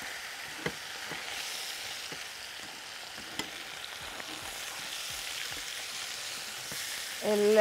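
Meat and onion sizzling in a stainless steel pot while a metal utensil stirs them. A couple of sharp clicks of metal on the pot stand out above the steady sizzle.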